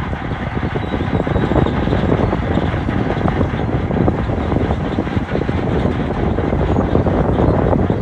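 Shantui DH17-C2 crawler bulldozer working: its diesel engine runs steadily and loudly with a low rumble as the blade pushes a pile of broken rock.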